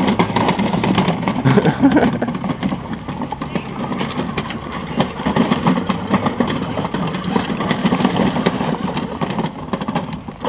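Ride-on toy truck converted to RC, driven by a 2150kv brushless electric motor through its gear drive, running across grass. The motor and drivetrain whir unevenly as the throttle changes, with tyres rustling over the lawn.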